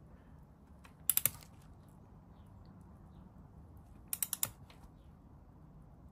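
Ratchet head of a click-type torque wrench clicking in two short runs, three or four clicks about a second in and about five around four seconds in, as the handle is swung back between pulls while tightening a motorcycle's sump plug.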